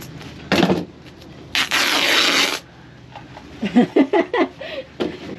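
Scissors cutting through nylon peel ply fabric: a short rasp, then a longer rasping cut lasting about a second. A man's brief voice follows near the end.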